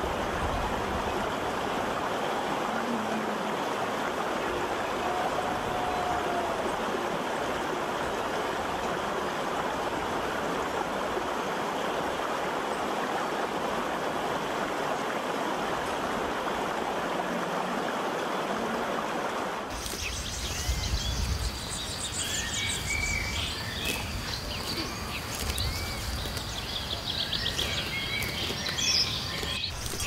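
Steady rush of a shallow mountain stream running over rocks. About two-thirds of the way through it cuts off suddenly, giving way to birds chirping over a low, uneven rumble.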